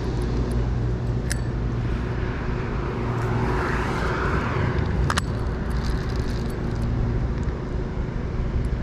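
Road traffic: a steady low drone of motor vehicles, swelling as a car passes about three to five seconds in, with two sharp clicks.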